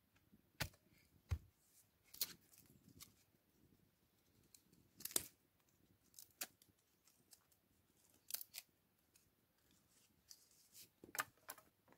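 A hatchet strikes wood once with a dull thud about a second in. After that come scattered sharp snaps and crackles of small dry wood or bark being broken and torn by hand, with near quiet between them.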